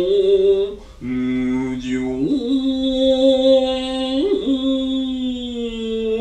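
A man's voice chanting biwa-style narrative song (biwa-gatari), holding long drawn-out notes. There is a short break about a second in, then the voice lifts in pitch a little after two seconds and holds that note with a slight waver.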